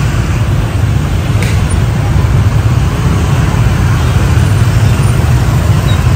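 Road traffic noise: a loud, steady low rumble of passing motor vehicles, with a faint click about a second and a half in.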